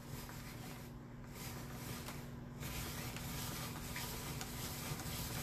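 Hand-cranked spiralizer being turned, its blade cutting a zucchini into spiral strands: a faint, continuous scraping and crunching.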